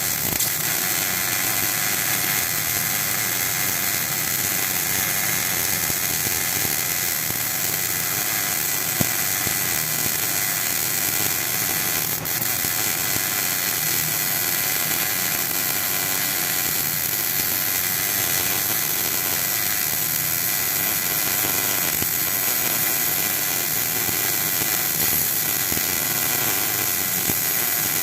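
MIG welder running a continuous bead on a steel refrigerator compressor shell, with a steady crackling hiss that barely changes in level.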